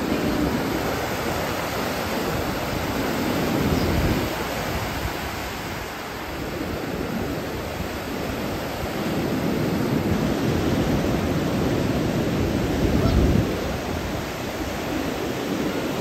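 Ocean surf breaking and washing up the beach in a continuous rush, swelling louder about four seconds in and again over a longer stretch later on as waves break.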